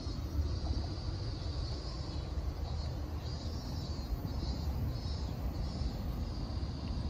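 Outdoor background: a steady low rumble with a faint high hiss that swells and fades every second or so.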